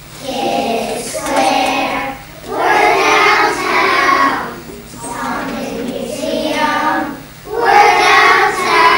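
A group of young children singing together as a choir, in phrases about two and a half seconds long with short breaks for breath.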